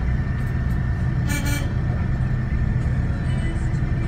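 Bus engine rumbling steadily, heard from inside the passenger cabin. A short vehicle horn toot sounds once, a little over a second in.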